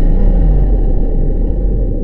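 Dark ambient sound-design drone: a loud, deep rumble over a steady low hum, with a slow wavering tone that fades out in the first second. The higher layer thins away toward the end.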